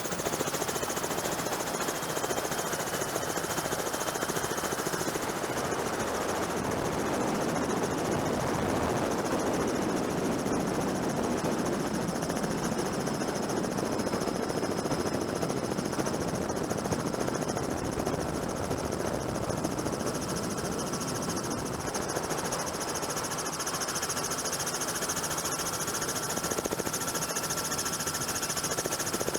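Steady helicopter noise heard from on board: fast, even rotor chop with a faint high turbine whine.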